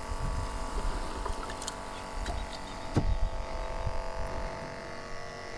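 Steady machinery hum from nearby construction with wind rumbling on the microphone, and a few light clicks and knocks.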